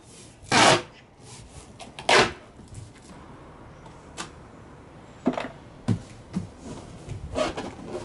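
Thick gaffer tape pulled off the roll in two loud rips, about a second and a half apart, followed by several lighter knocks and rustles of hands working on the taped cardboard box.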